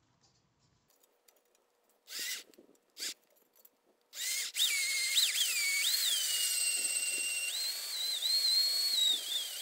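Cordless drill with a small bit boring a pilot hole through a metal mirror rail: two short bursts of the drill about two and three seconds in, then steady drilling from about four seconds with a high whine that wavers in pitch. The metal is pretty hard to drill through.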